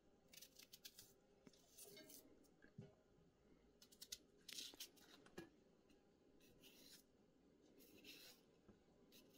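Kitchen knife paring the skin off raw potatoes by hand: faint, irregular scraping strokes, with a couple of soft knocks in between.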